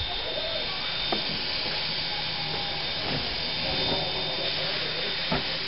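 Steam hissing steadily from the standing C17 No.720 steam locomotive, with a faint high whistle-like tone in the hiss.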